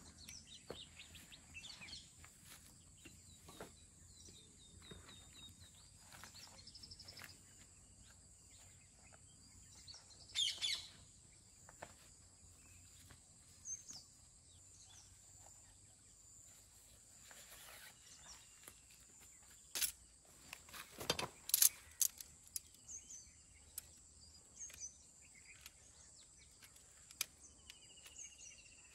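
Birds chirping and calling in short phrases over a steady high background tone. A cluster of sharp clicks or knocks comes about two-thirds of the way through and is the loudest sound.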